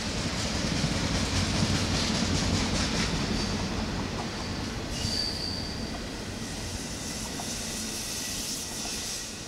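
Intermodal freight cars rolling past on the rails, wheels clattering with brief high wheel squeals. The sound slowly gets quieter as the end of the train passes.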